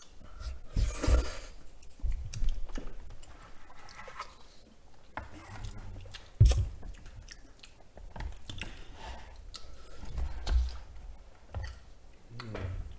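Close-miked mouth sounds of eating cream-sauce noodles: slurping about a second in, then irregular chewing. A sharp click about six and a half seconds in is chopsticks against the plastic tray.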